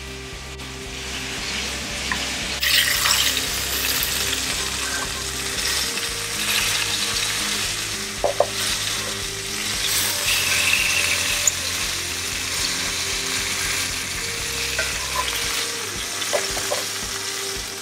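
Chicken thighs sizzling in hot oil in a cast-iron skillet, a steady frying hiss that starts a couple of seconds in.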